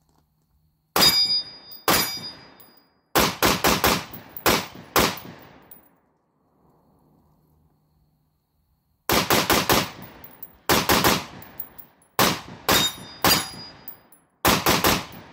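Shots from a PSA AR-style semi-automatic rifle fitted with a muzzle compensator: two single shots, then a rapid string of about seven, and after a pause of about three seconds several more quick strings of shots. Each shot is sharp and dies away in a short echo, and a few leave a brief high ringing tone.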